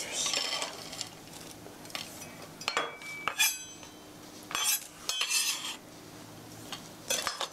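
Kitchen utensils and dishes clinking and knocking on the counter in scattered short bursts, with a brief ringing clink about three seconds in.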